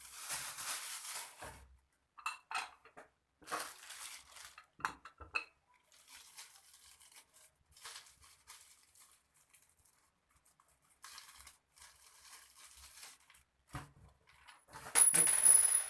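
Parts of a spiral potato cutter being handled and fitted together: light clattering knocks of plastic and metal pieces and rustling of packaging, with a louder scraping near the end.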